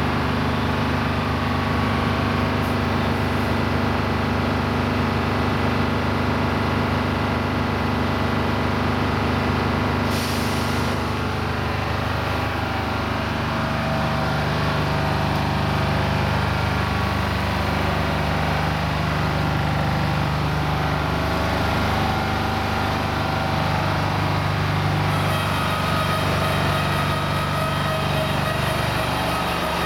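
Diesel engine of a heavy-haulage tractor unit running steadily close by as the rig creeps forward, its note shifting about halfway through. A short hiss, like air brakes, comes about ten seconds in.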